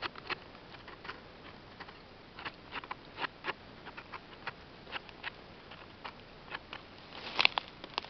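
Small knife scraping sand and dirt off the stem of an old porcini mushroom: irregular short scrapes and clicks. Near the end comes a louder rustle as the mushroom goes into the bucket among the others.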